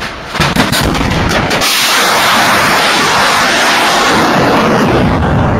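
Topol-M ballistic missile launching from its silo: a run of sharp blasts, then from about one and a half seconds in a steady, loud roar of rocket exhaust.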